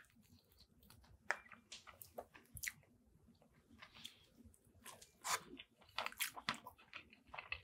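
Faint biting and chewing of battered fried fish, with irregular small crunches and crackles of the fried batter.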